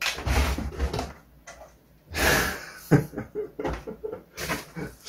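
A cardboard box being unpacked: rustling and scraping of cardboard, then a string of short knocks as a metal heater is lifted out of it.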